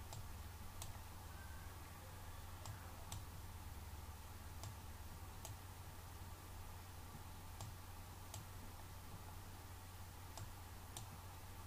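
Faint computer mouse clicks, about ten scattered through, some in pairs under a second apart, over a low steady hum.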